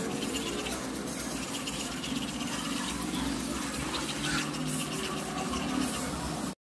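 Teeth being brushed with a manual toothbrush and toothpaste: steady scrubbing of the bristles.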